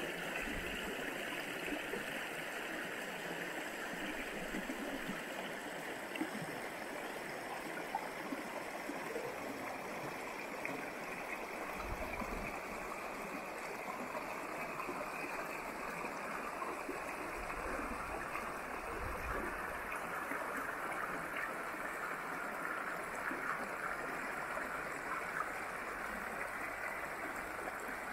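Jemez River running shallow over rocks: a steady rush of flowing water.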